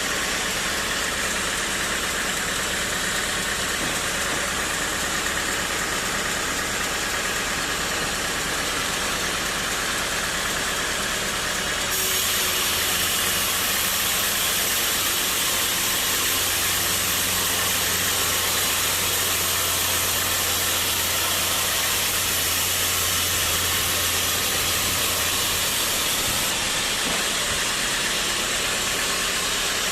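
Sawmill machinery running steadily with a continuous hiss. About twelve seconds in it turns abruptly louder and brighter, with a deeper hum underneath. Near the end it drops back to the earlier sound.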